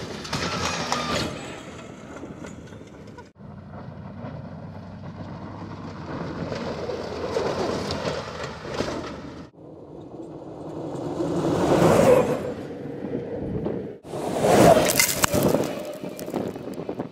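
Electric off-road race buggy speeding past on desert dirt in several short cut-together shots: tyre and gravel noise with rattles, each pass swelling and fading, the loudest two in the last third.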